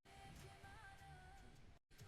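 Faint background music with a wavering melodic line, dropping out for a moment near the end.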